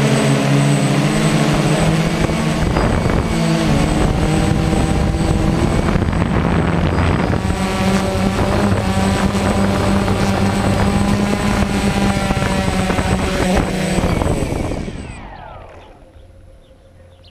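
DJI Phantom quadcopter's electric motors and propellers running loudly at a steady pitch. About 15 seconds in they spin down with a falling pitch and stop as the drone lands.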